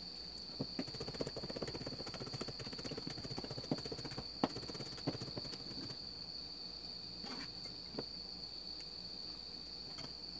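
Chef's knife mincing garlic on a plastic cutting board: a fast run of light chopping taps for the first few seconds, then a few separate cuts later on as a green chili is cut, over a steady high-pitched whine.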